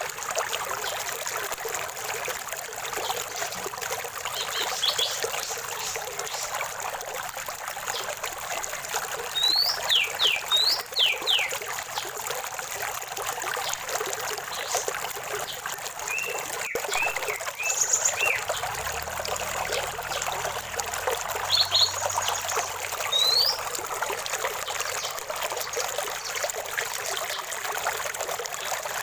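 A small stream trickling and babbling steadily, with songbirds calling now and then over it: a few quick falling whistles, a short run of chirps and scattered high notes.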